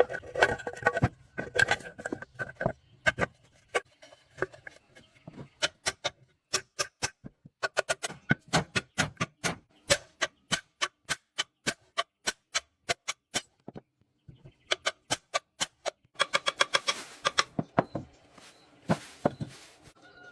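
Rapid sharp clicks, several a second, in runs broken by short pauses.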